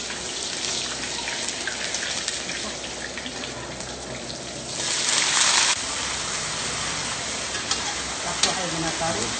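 Ginger slices frying in hot oil with a steady crackling sizzle. About five seconds in there is a louder hiss lasting about a second, as water is splashed into the hot pan.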